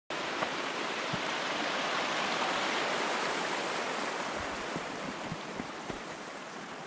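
Steady rushing of a flowing stream, an even hiss of water that eases a little towards the end, with a few faint low thuds.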